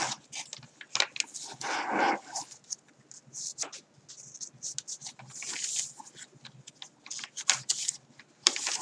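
Thick hand-dyed paper pages of a handmade journal being turned and handled: repeated short, irregular rustles and flaps, the fullest and loudest about two seconds in.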